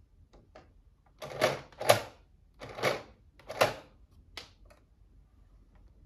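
Plastic head of a Fisher-Price toy robot twisted round by hand, clicking through its detents: four loud plastic clunks within under three seconds, then a lighter one.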